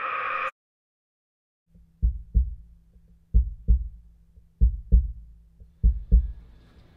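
Heartbeat sound effect: deep double thumps, lub-dub, about every one and a quarter seconds, four beats starting about two seconds in. Just before them, a steadily swelling noise cuts off suddenly about half a second in.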